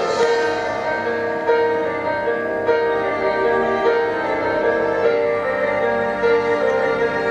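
Background music: a gentle piano-led instrumental with sustained melodic notes.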